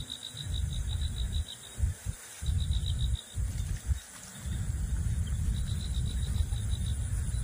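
Wind buffeting the microphone in gusts, with a low rumble that drops away several times. Over it, a high, rapidly pulsing chirp, like an insect, comes in three short runs.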